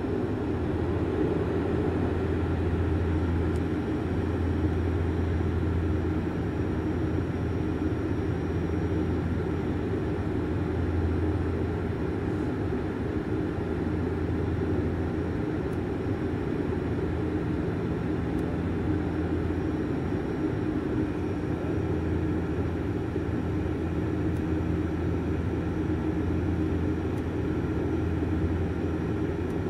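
Cabin drone of a Bombardier Dash 8 Q400 turboprop: the PW150A engines and six-bladed propellers making a steady low hum that swells and fades slowly, heard inside the cabin as the airliner descends toward landing.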